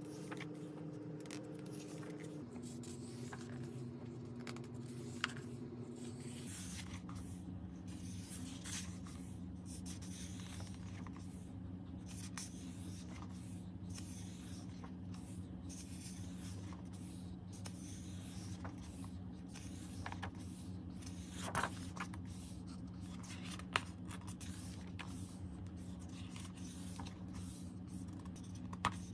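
Pages of a paperback coloring book being turned and handled: paper rustling and soft flicks, with a few sharper page snaps. A low steady tone sits underneath, stepping down in pitch twice in the first seven seconds and then holding.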